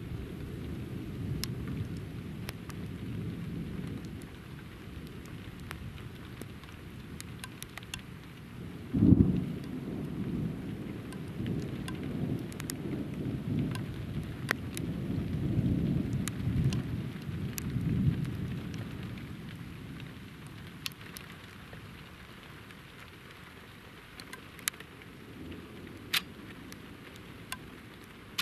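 Thunder during a night thunderstorm: a sudden loud clap about nine seconds in, then rolling rumbles that swell and slowly die away, with scattered ticks of raindrops.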